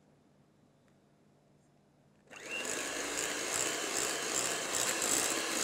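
Electric hand mixer switching on about two seconds in and running steadily, its beaters whipping semi-whipped cream into a cream-cheese mixture in a glass bowl.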